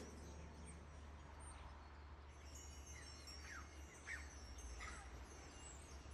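Faint background ambience: a few short, falling bird chirps over a low steady hum.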